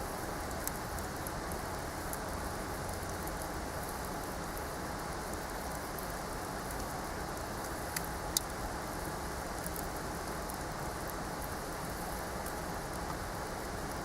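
Wood fire crackling: a steady hiss with scattered small pops, and two sharper cracks about eight seconds in.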